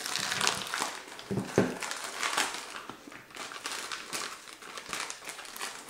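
Small sealed packet crinkling in the hands as it is picked and pulled at to get it open, irregular and busiest in the first couple of seconds.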